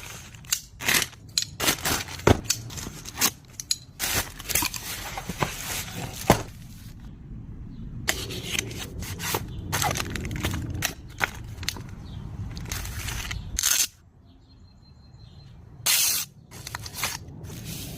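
Handling noise from unboxing a flashlight: packaging rustling and crackling, with many sharp clicks and scrapes. A brief lull comes about two-thirds of the way through.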